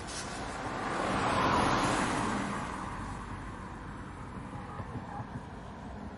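Car passing by: road noise swells to a peak about a second and a half in, then fades away slowly as it recedes.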